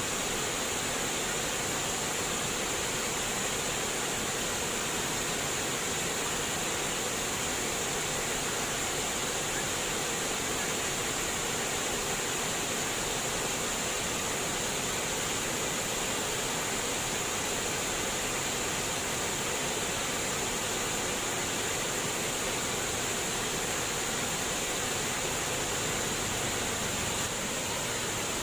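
Flowing water splashing and trickling in a steady, unbroken stream.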